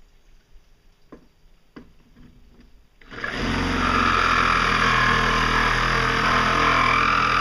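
A few light knocks of handling, then a cordless angle grinder starts about three seconds in and runs loud and steady, cutting parts off a boat's frame.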